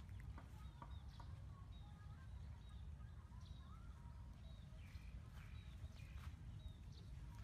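Quiet outdoor ambience: scattered short bird chirps over a low, steady rumble, with a few faint clicks.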